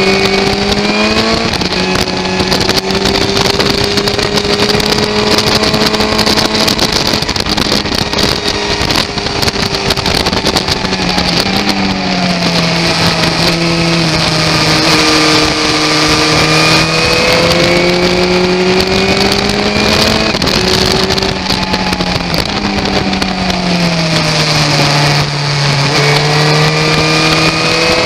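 Motorcycle engine at track speed, heard from an onboard camera with heavy wind noise over it. The engine note holds, drops and climbs again several times with throttle and gear changes: a drop about a second and a half in, another near the middle, the lowest dip a few seconds before the end, then rising again.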